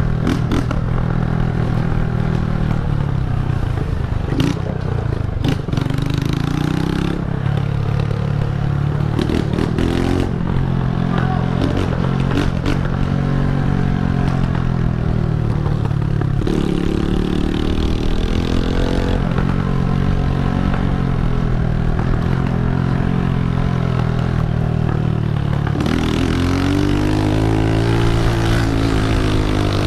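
Honda CG125 single-cylinder four-stroke motorcycle running loud on a straight-through exhaust while being ridden, its pitch rising and falling again and again as the rider revs up and backs off through the gears.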